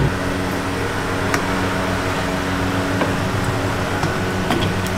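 Steady motor hum with several low tones, with a few light metal clicks from wire grill baskets being handled over a charcoal grill.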